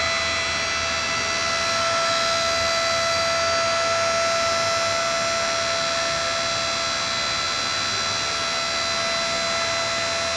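Portable geotechnical drill rig's motor running at a steady speed: an even, high whine over a hiss.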